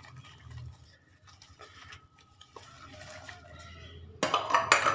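Plates and cutlery clinking softly as dishes are washed by hand at a kitchen sink. About four seconds in, a sudden, much louder burst of noise starts and carries on.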